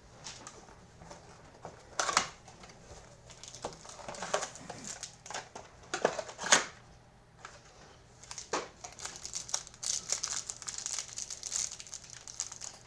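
Packaging of trading-card hanger boxes being opened by hand: crinkling and rustling of wrappers and cardboard, with a few sharp snaps.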